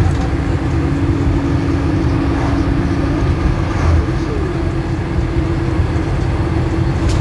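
Minibus ride heard from inside the cabin: steady engine and road rumble with a constant low drone at cruising speed.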